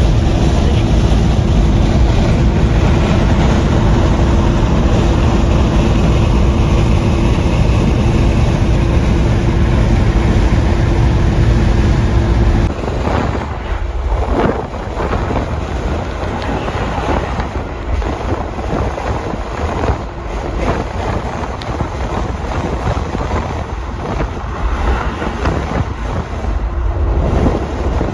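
Cabin noise of a 1969 Opel Commodore A's straight-six cruising on an open road: a steady engine drone over road and wind noise. About halfway through it changes abruptly, and wind gusts buffet the microphone over the running car.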